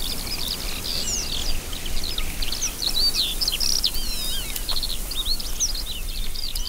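Dense chorus of many birds chirping and whistling in quick, overlapping calls over a low steady rumble of marsh ambience.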